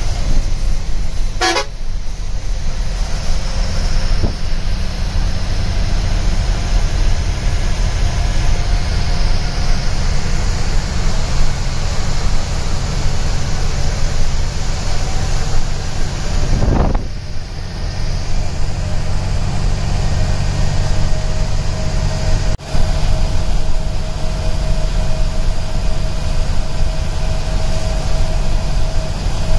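Coach engine drone and tyre noise on a wet road, heard from inside the front cabin of a moving bus in heavy rain, with the horn tooting.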